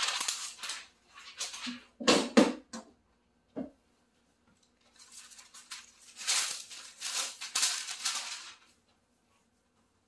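Crackling rustle of DTF transfer film being peeled off a heat-pressed shirt, a few dull knocks about two seconds in, then the rustle of a kraft-paper cover sheet being lifted off a shirt on the heat press, ending in a brief quiet stretch.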